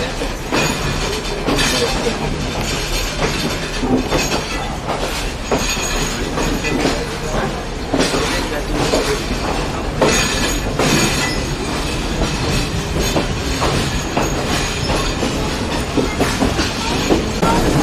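A moving passenger train heard from inside the carriage: a steady rumble and rush, with wheels clattering on the rails and many irregular knocks and rattles throughout.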